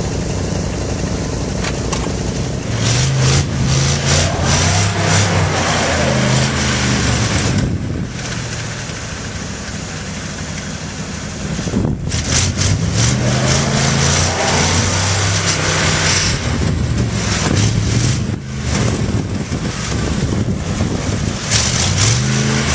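Off-road 4x4 truck engine revving hard in the snow in repeated surges, its pitch climbing and falling again and again as the driver works the throttle, with a quieter spell about a third of the way through.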